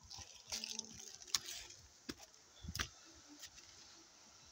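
Footsteps crunching on dry fallen leaves and stony ground: a few scattered faint clicks and crunches.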